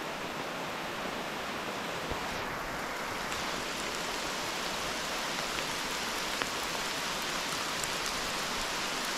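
Steady rain falling: an even hiss, with a few sharper drop hits here and there.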